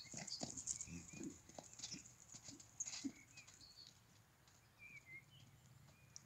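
Faint hoofbeats of a baroque warmblood stallion running loose on a gravel arena: irregular thuds, busiest in the first three seconds and thinning out after. A few small bird chirps come and go over them.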